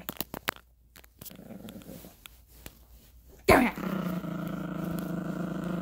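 Yorkshire terrier puppy play-growling over a plush toy. First come a few soft scuffles and clicks. About three and a half seconds in, a sharp yap slides down into a long, steady growl.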